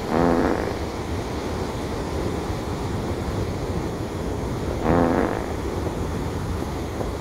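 Steady noise of breaking ocean surf with wind on the microphone. Two short, low-pitched sounds break through it, one at the very start and one about five seconds in.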